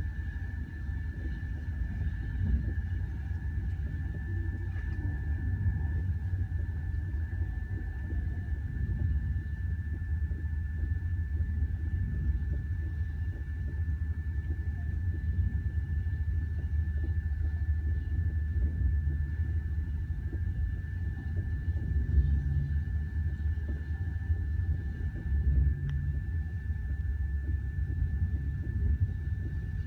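Steady low rumble of a passenger train running along the track, heard inside the carriage, with a thin steady high whine over it and a few brief louder swells.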